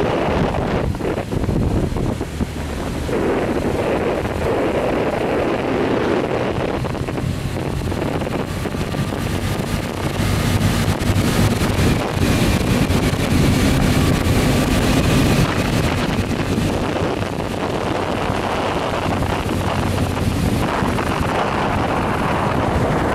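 Wind buffeting the microphone of a moving motorcycle, over the steady running of its engine. A faint steady whine stands out from the noise for a few seconds around the middle.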